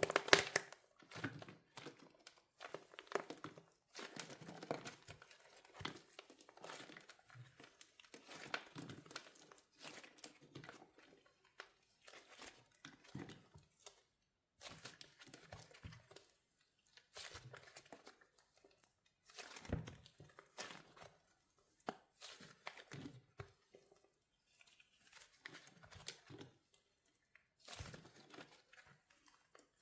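Wax shell on a soft soap squishy cracking and crinkling as it is squeezed, in irregular clusters of crackles with short pauses between them. The loudest crack comes right at the start.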